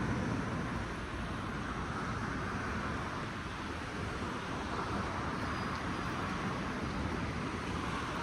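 Steady outdoor city ambience: an even wash of distant road traffic with no distinct single event.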